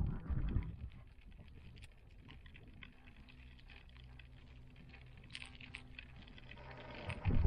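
The cabin of a moving cable car gondola: a faint steady low hum with scattered light ticks and taps. Low rumbles at the start and again about seven seconds in.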